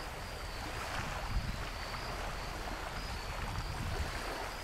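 Outdoor ambience with a low rumble of wind on the microphone and a faint steady hiss, over which a faint high tone swells and fades repeatedly.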